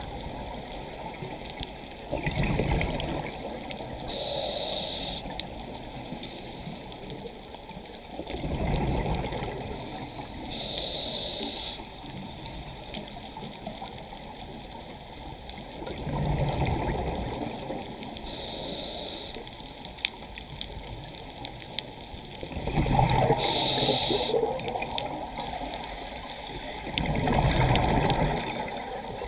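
Scuba diver breathing through a regulator underwater: a short hiss on each inhale, then a rumble of exhaled bubbles, repeating about every five to six seconds.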